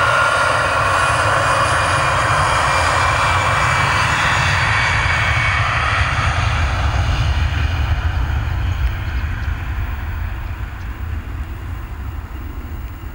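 Airbus A320-214's twin CFM56 turbofan engines at takeoff thrust during the takeoff roll. It is a loud jet roar with a high whine that fades after about six seconds as the aircraft runs away down the runway, leaving a low rumble.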